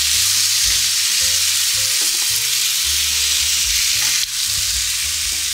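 Ground beef burger patties sizzling steadily on the hot grill plate of a Ninja Foodi Smart XL Grill set to high, as they are turned over with a spatula.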